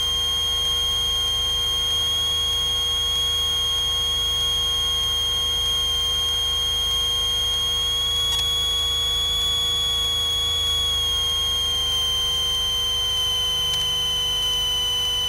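A steady high-pitched tone, wavering slightly in pitch, sounds continuously in the cockpit of a Cessna 182RG on final approach, over the low drone of its engine.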